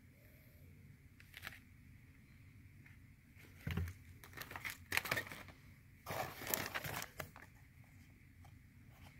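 Plastic fishing-lure packaging crinkling as it is handled: a clear blister pack and a plastic bag of soft baits rustle in several short bursts, with a longer one about six seconds in.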